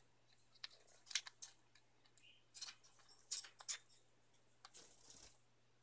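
Faint, scattered clicks and light crackles of a small pet bird moving about a wooden playstand among its toys, over a faint steady low hum.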